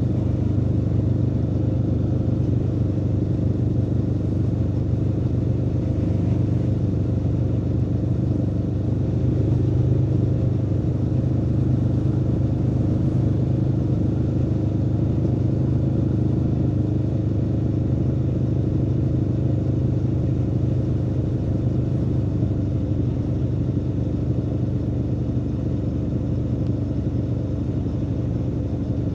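Aprilia Tuono V4 motorcycle's V4 engine running at a steady, nearly constant pitch, holding an even cruising speed, with a slight swell in loudness about a third of the way in and a slight easing off in the later part.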